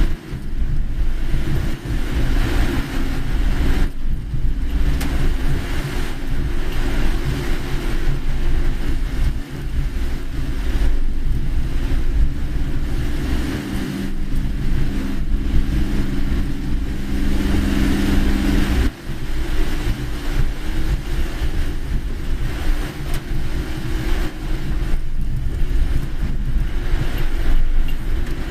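A car driving on a rain-soaked road in typhoon weather: steady engine and tyre noise with a hiss of water and rain. A steady low hum joins in for a few seconds a little past halfway.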